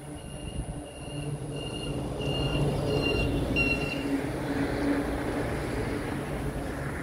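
Level-crossing warning bell dinging about twice a second, stopping about four seconds in, while a low rumble swells, loudest in the middle.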